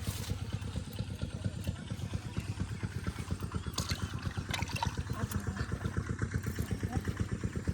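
A small engine running steadily with a low, rapid putt-putt, about ten beats a second, plus a few faint clicks.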